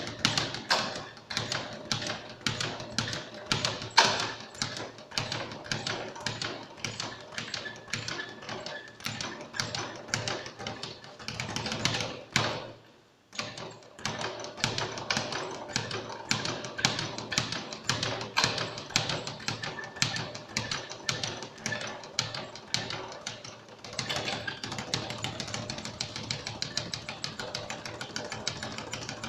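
Speed bag being punched against a wooden rebound platform: a fast, rhythmic rattle of the bag striking the board. It stops briefly about halfway through, then picks up again.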